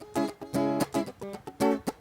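Guitar strumming short, clipped chords, about four strokes a second, in a soul song's intro.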